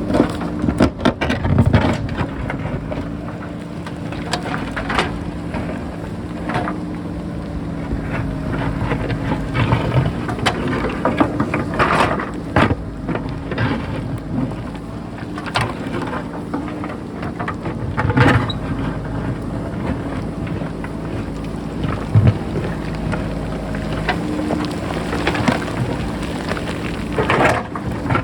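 JCB backhoe loader's diesel engine running steadily under load, with irregular knocks and clattering of rock as the machine digs into a rocky mountainside.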